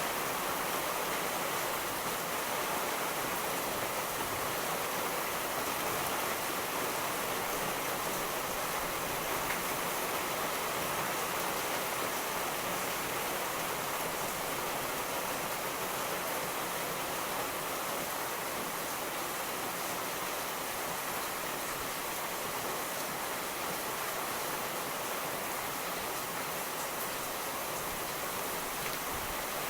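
Steady rain falling, an even dense hiss that holds level throughout with no thunder rumble.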